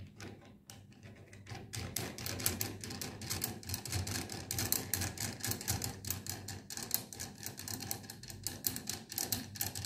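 A steel lock nut being spun by hand along a threaded steel tie rod, a fast, irregular clicking of metal on the threads, starting just under a second in.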